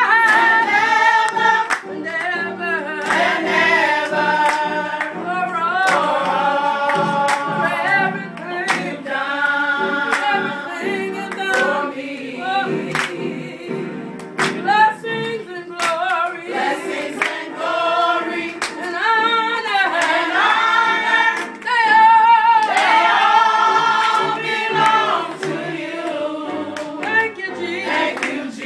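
Small group of women singing a gospel song together, their voices wavering with vibrato and breaking off briefly twice before going on.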